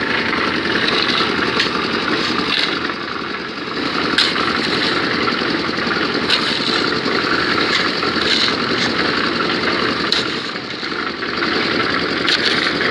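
Small concrete mixer's engine running steadily, with several sharp scrapes of steel shovels biting into sand.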